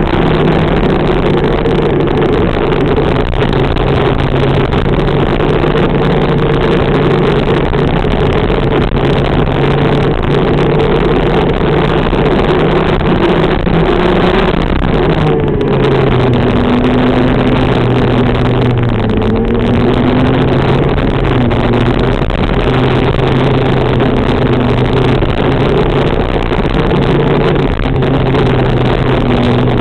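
TM K9 125cc water-cooled two-stroke shifter kart engine running hard at racing speed. Its note holds mostly steady, then drops and climbs back up about halfway through, with smaller pitch changes later on.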